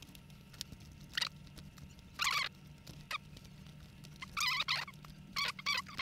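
Short, faint scratchy rustles, several in a row, of insulated wire ends being twisted together by hand at a table fan's speed-switch terminals.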